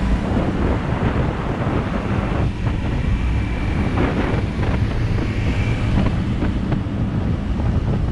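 Wind buffeting the microphone of a motorbike moving at speed, over a steady rush of engine and road noise.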